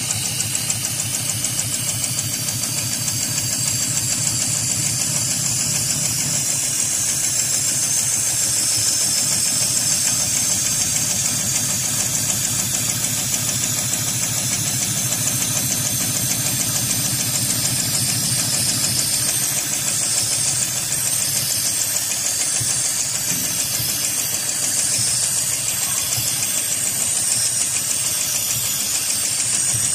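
Heavy-duty automatic pattern sewing machine stitching through thick layered webbing: a steady, fast run of needle strokes.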